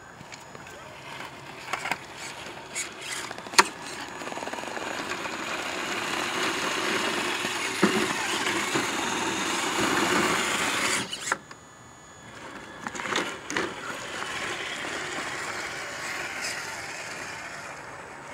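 Traxxas TRX-4 RC rock crawler's electric drivetrain whirring as it climbs over rocks, with tyres crunching on loose stone and sharp knocks of stone against the truck. The whirring swells over several seconds and cuts off suddenly about eleven seconds in, then resumes more quietly.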